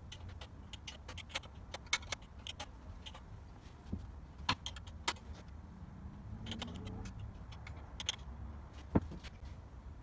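Irregular light metallic clicks and clinks from a Scott Bonnar Model 45 mower's roller drive chain and sprockets being fitted and worked by hand, with a sharper knock near the end, over a low steady rumble.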